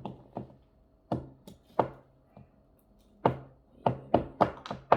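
Irregular sharp taps and knocks of a spoon against a bowl as slime mixture is stirred, sparse at first and coming faster, about three a second, near the end.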